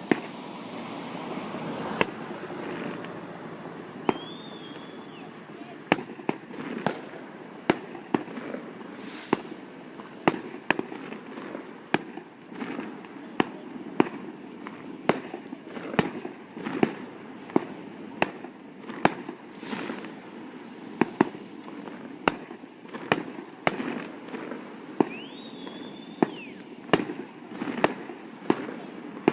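Fireworks going off in a long irregular string of sharp bangs, often one or two a second.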